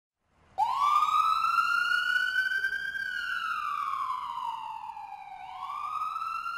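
Ambulance siren sound effect sounding a slow wail. It starts about half a second in, climbs and holds high, slides down over a couple of seconds, then starts climbing again near the end.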